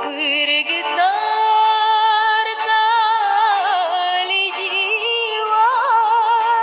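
A woman singing a dangdut-style ballad, holding long notes with vibrato and ornamented runs over a music backing with light, regular percussion ticks. Her voice glides up into a long sustained note about a second in, then winds through a wavering run before settling into another held note.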